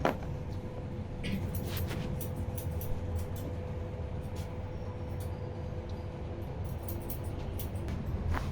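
Short sharp cracks and slaps from a barber's hands-on massage, scattered irregularly and loudest at the start and near the end, over a steady low background rumble with a faint hum.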